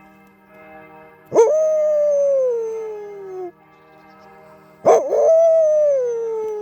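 A dog howls twice, each howl a long call that starts sharply and slowly falls in pitch. Church bells ring steadily underneath.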